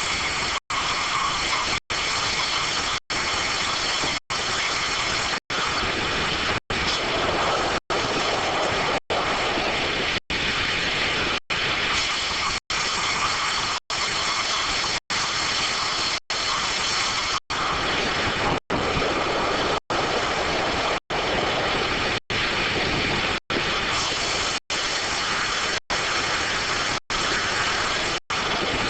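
Circular sawmill running: a loud, steady machine noise with faint high tones, broken by very short, evenly spaced gaps of silence a little under once a second.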